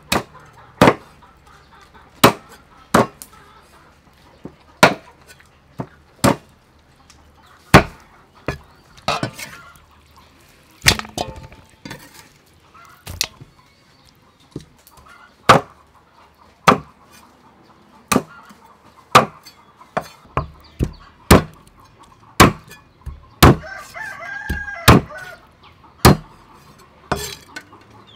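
Meat cleaver chopping raw chicken wings on a wooden chopping block: single hard chops, roughly one a second and unevenly spaced. A rooster crows once in the background near the end.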